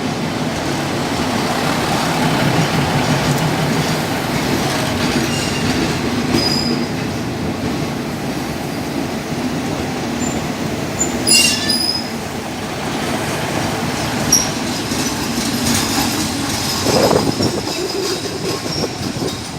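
Railway cars rolling slowly with a steady rumble, wheels squealing faintly on the rails. A few sharp metallic clanks come about halfway through and later, as the train is being made up.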